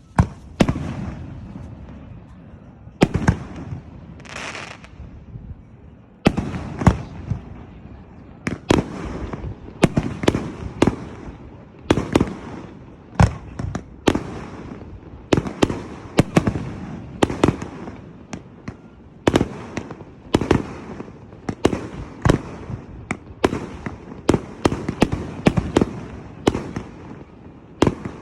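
Fireworks exploding overhead: a run of sharp bangs with ringing tails. They are spaced a few seconds apart at first, then come one to three a second from about eight seconds in.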